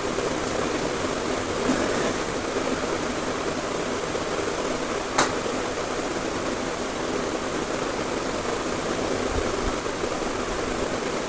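Steady rushing noise with no clear pitch, like running water or a fan, and a single sharp click about five seconds in.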